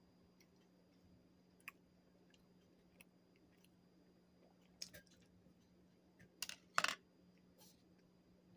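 Quiet chewing of a plain old-fashioned donut: a few soft, scattered mouth clicks and smacks, the loudest about seven seconds in, over a steady low hum.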